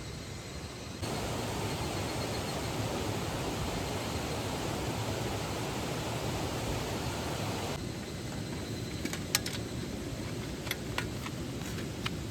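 Steady rushing of a mountain stream. It gets louder about a second in and quieter again after about eight seconds. A few sharp light clicks come near the end.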